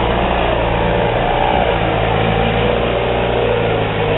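Toyota pickup truck's engine running steadily as it fords deep floodwater, with the water rushing and churning around the truck.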